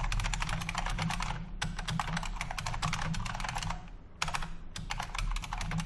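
Fast typing on a Unicomp Ultra Classic buckling-spring keyboard: a dense stream of sharp key clicks. There is a short pause about two-thirds of the way through before the typing resumes.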